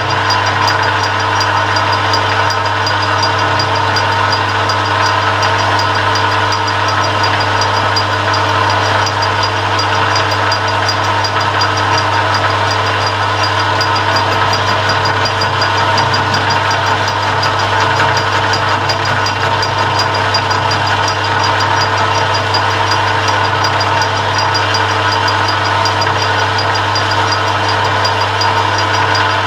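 Metal lathe running steadily, its tool taking a cut along a steel shaft, with a strong even hum under the whine of the drive.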